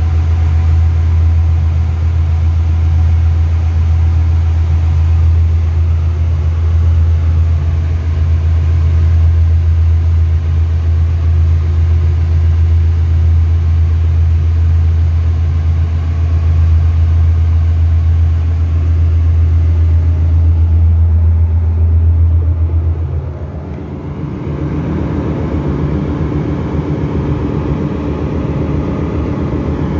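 Steady loud low drone of ship engine-room machinery, heard from inside the cylinder liner of a main engine that is stopped for overhaul. About three quarters of the way through it dips briefly, then carries on as a rougher, more uneven hum.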